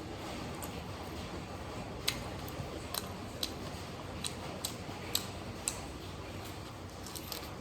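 Close-miked eating: chewing and lip-smacking mouth clicks, about a dozen sharp irregular ticks, over a steady background hum.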